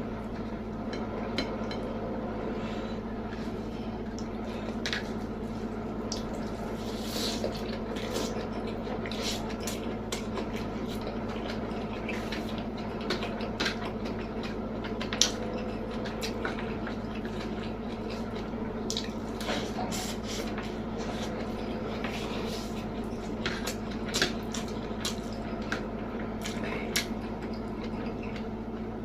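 Someone eating close to the microphone: wet chewing and lip smacks, with scattered short clicks and occasional clinks of plate and cutlery, over a steady low background hum.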